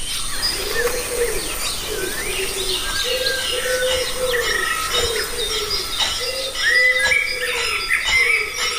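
Birds chirping and twittering, many short calls overlapping, with a low arching cooing call repeating about once a second underneath.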